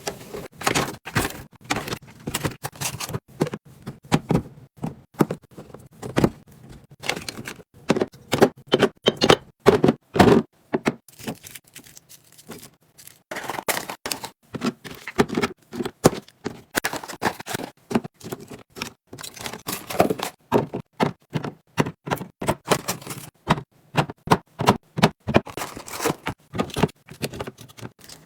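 Containers and groceries being handled and set down on refrigerator shelves: a quick, irregular run of clicks, taps and knocks of plastic and glass, with a short lull about halfway through.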